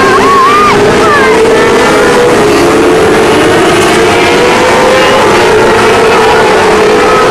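A pack of 600cc micro sprint cars racing, their motorcycle-type engines running hard together in a loud, steady drone, with pitches shifting slightly as the cars pass.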